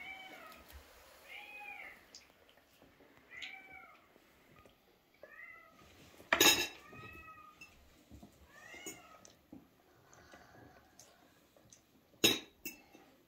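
A cat meowing repeatedly, short rising-then-falling meows every second or two. Two sharp knocks, the loudest sounds, come about six and twelve seconds in.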